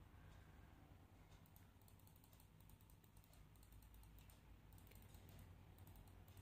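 Near silence: a low steady hum with faint quick clicks in short runs, about a second and a half in and again about five seconds in.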